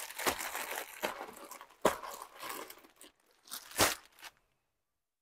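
Crinkling and rustling as sarees and their wrapping are handled, with two sharper crackles, one about two seconds in and one near four seconds. The sound cuts out completely a little after four seconds in.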